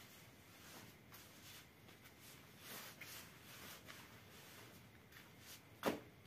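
Hands kneading bread dough on a floured plastic sheet: faint soft pressing and rustling, with one sharp thump near the end.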